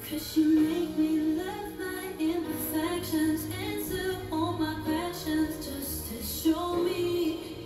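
Pop song playing: a woman singing held, sliding notes over a backing track with steady high percussion.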